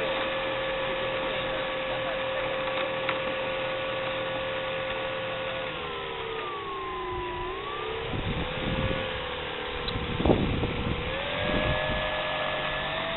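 Electric motor and propeller of an electric-converted RC P-51 Mustang whining steadily, the pitch dipping about six seconds in and climbing again near the end as the throttle changes. Low rumbles come and go in the second half.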